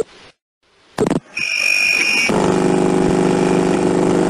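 Air traffic control communications audio: two sharp transmission clicks about a second apart, then a brief high electronic tone, then a loud, harsh, steady electronic buzz lasting about two seconds.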